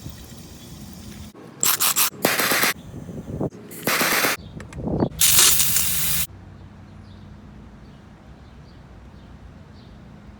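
Several loud, abrupt bursts of hissing spray, each half a second to a second long, in the first six seconds, over a low steady hum.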